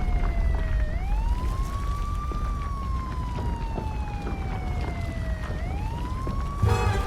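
A siren wailing: its pitch rises over about a second and a half and then falls slowly for about three seconds, twice, over a deep rumble. Near the end a burst of clattering sounds joins in.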